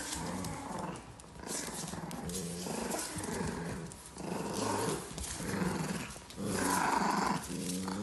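Two puppies growling in play while tugging a plush toy between them: repeated low growls in several spells, with scuffling between them.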